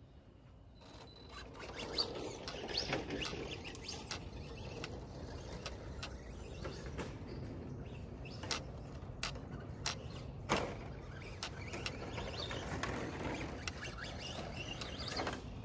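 Electric radio-controlled car, a Team Associated DR10 running on 3S power, driving on a dirt track: a steady motor and tyre noise on dirt, with occasional sharp knocks from bumps, the sharpest about ten and a half seconds in.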